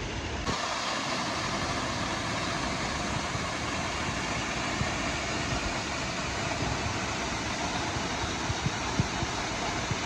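Tall waterfall's steady rush of falling water.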